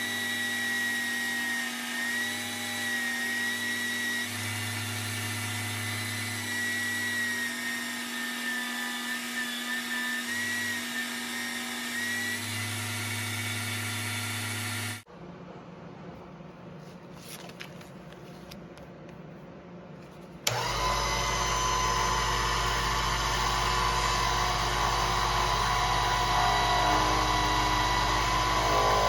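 A power tool's motor running steadily with a slightly wavering whine. About halfway it cuts off abruptly to a quieter stretch with a few clicks, and then another steady machine run with a low hum starts about two-thirds of the way through.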